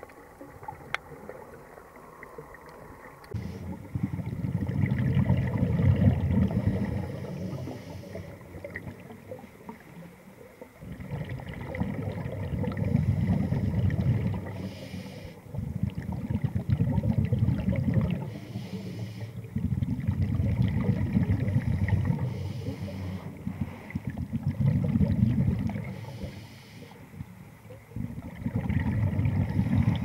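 Scuba diver's exhaled bubbles rumbling out of the regulator underwater, in about six long bursts a few seconds apart, the rhythm of steady breathing.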